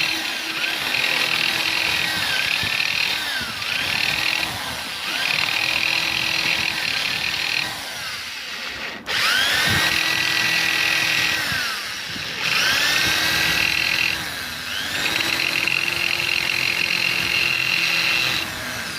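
Small handheld power tool whining in about seven short runs, its pitch rising as it spins up and falling as it stops. It is grinding down a raised edge and burr inside the sewing machine's shuttle area that was cutting the upper thread.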